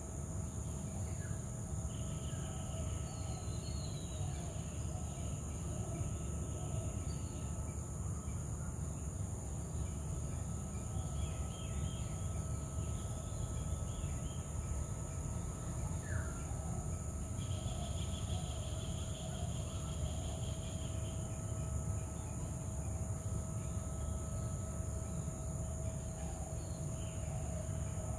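Outdoor ambience: a steady high-pitched insect drone, with scattered bird chirps now and then over a constant low rumble.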